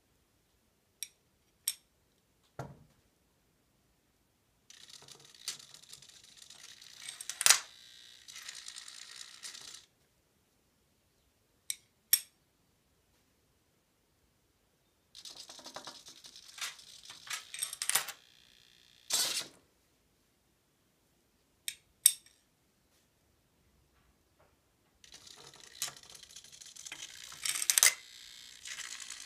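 Novelty hen money box working in three runs of about five seconds each, a busy mechanical whirring with rapid clicking as the hen pecks the coin from its pad. Single sharp clicks of coins fall between the runs.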